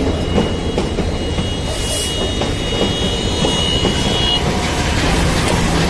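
Passenger train coaches rolling past at speed: a steady rumble with repeated clicks of the wheels over the rail joints.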